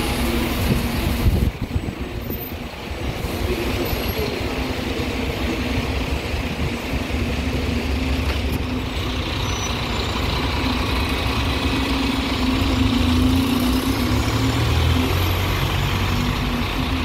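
Bus engine running at a bus stand, its note steady, with a brief louder burst about a second in and a heavier low rumble near the end.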